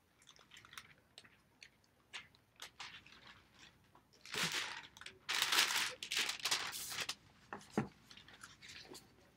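Crinkling and rustling of a sheet being handled, in two louder stretches around the middle, with scattered small clicks and taps before and after.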